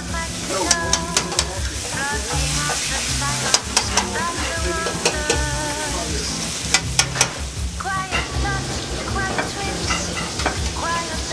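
Meat sizzling in butter in a frying pan, with sharp metal clinks of pans and utensils, over background music.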